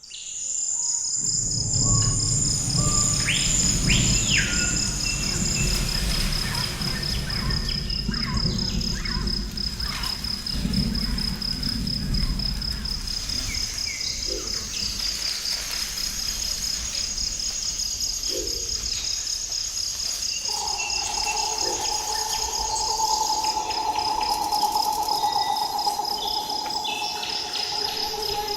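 Forest ambience: insects trill steadily in rapid high pulses, with short sweeping bird calls and a low rumble in the first half. A second, lower steady insect trill joins about two-thirds of the way in.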